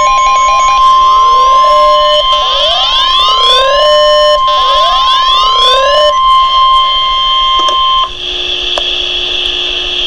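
Weather alert radio sounding its alarm: a steady high warning tone with a rising siren wail repeating about every two seconds. About eight seconds in the alarm stops, leaving a lower steady tone and hiss.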